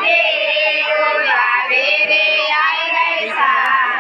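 Women's voices singing, holding long notes that bend and slide between pitches.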